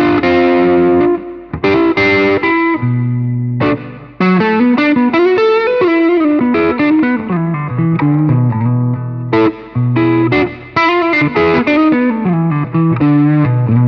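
Les Paul–style electric guitar with humbuckers played through a Caline Jaguar Classic High Gain Distortion pedal set for low gain, the bias knob fully up for a cleaner, lightly broken-up tone. Struck chords at first, then quick single-note runs, with chords again in the second half.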